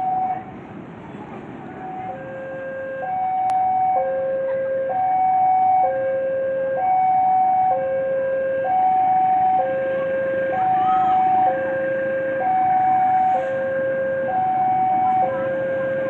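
Railway level-crossing warning alarm sounding an alternating two-tone signal, a higher and a lower tone of about a second each, repeating steadily. It breaks off briefly and starts again about two seconds in, warning of a train approaching the crossing.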